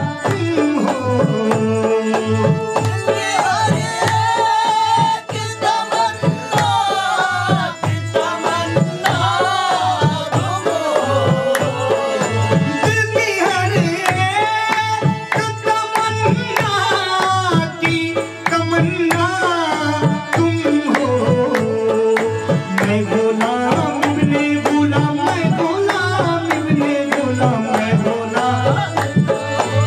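Qawwali music: harmonium melody and drone over a steady dholak drum rhythm, with hand claps and a sung melody line.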